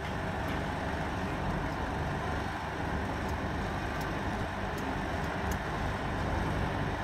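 Steady city street ambience: a low rumble of traffic with a hiss over it, and a few faint clicks.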